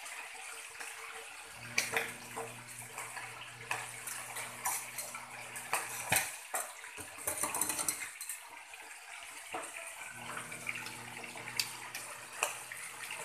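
Milkfish frying in hot oil in a pan: a steady sizzle with scattered pops and clicks of spattering oil.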